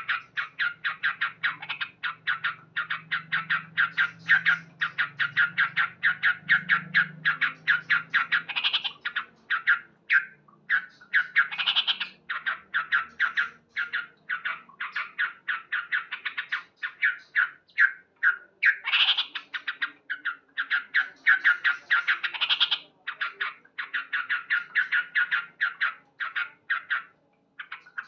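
Male yellow-vented bulbul (trucukan) calling without pause: a fast run of short, sharp 'cuk cuk' notes, four or five a second, broken now and then by a longer warbled phrase.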